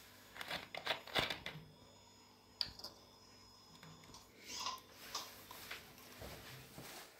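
Soft handling noise from a camera being held and operated: a cluster of small clicks and rustles, a sharper click about two and a half seconds in, then a few softer rustles, over a faint steady hum.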